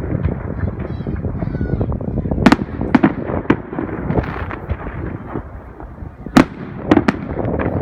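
Aerial fireworks going off: sharp bangs of shells bursting at uneven intervals, two or three at a time, over a continuous low rumble and crackle from the display.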